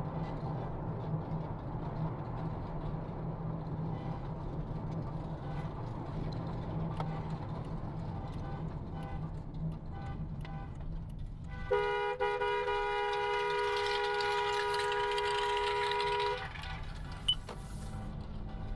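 Steady road noise inside a moving Toyota's cabin. About twelve seconds in, a two-tone car horn sounds and is held steadily for about five seconds, then cuts off.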